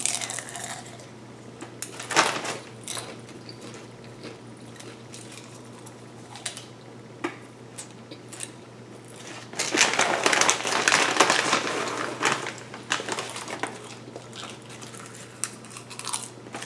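Crinkly foil snack bag rustling and crackling as a hand digs into it for popcorn, in scattered short crackles with one longer, louder stretch of rustling about ten seconds in. A steady low hum runs underneath.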